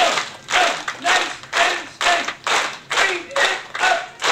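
Audience clapping together in a steady rhythm, about two claps a second, with voices calling out on the beats.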